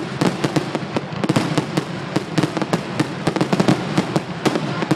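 Fireworks display going off in a rapid, continuous barrage of sharp bangs and crackles, many per second.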